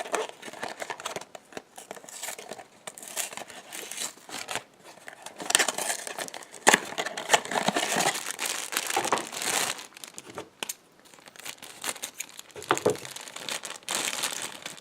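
Packaging crinkling and tearing by hand, with irregular crackles as a Funko Mystery Minis blind box and its plastic wrap are opened. The crinkling is densest in the middle and eases off near the end.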